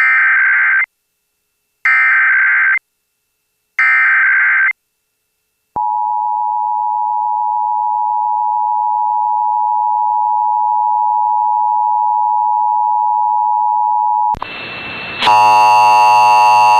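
Emergency Alert System header: three short screechy bursts of SAME digital data about two seconds apart, then the steady two-tone EAS attention signal for about eight and a half seconds. The tone cuts off and the audio switches to a hissy radio feed, with a buzzy tone over it near the end.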